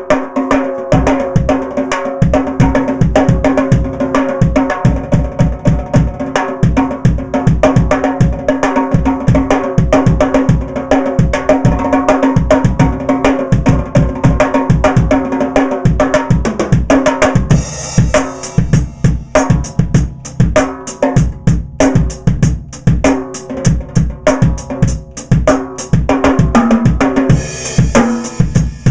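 Pearl Firecracker 10x5 and 12x5 steel-shell snare drums played with the snare wires off and no dampening: a fast, continuous run of stick strokes, each drum ringing with a clear, sustained pitch much like a tom.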